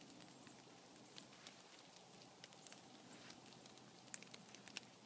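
Near silence outdoors, with faint scattered light ticks and crackles.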